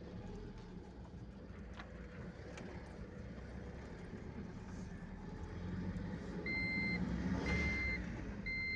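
Tata Yodha 1700 pickup's 2.2-litre diesel engine running steadily on a test drive, with no rattle now that the broken shield plate over the gearbox has been removed. About six and a half seconds in, a high electronic beeper starts, sounding about once a second.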